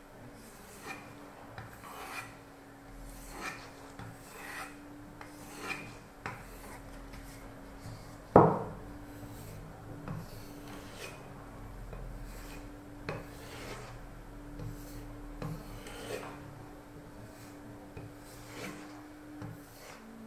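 Cold Steel Pocket Bushman folding knife blade being stropped, with short rubbing strokes roughly once a second, to improve an edge that snags where it has micro-chipped. One louder knock comes about eight seconds in.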